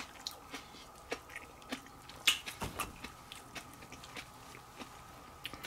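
Quiet eating sounds: chewing on a mouthful of udon, with wooden chopsticks picking through the noodles and scattered soft clicks against the aluminium-foil tray, the loudest about two seconds in.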